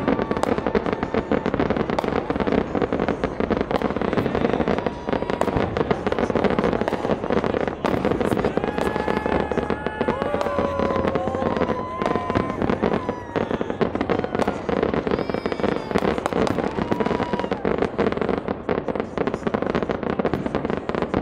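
A fireworks display in full barrage: a dense, continuous run of bangs and crackles, with a few whistles about halfway through.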